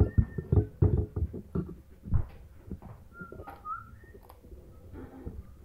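A metal spoon clinking and scraping on a ceramic plate of fried rice, with knocks on the table, densest in the first two seconds. A thin whistle-like tone fades out about half a second in, and another short one comes about three seconds in.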